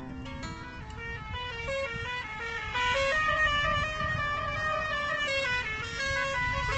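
A bus's multi-tone musical horn playing a quick melody of stepped notes over the low rumble of the moving bus, louder from about three seconds in.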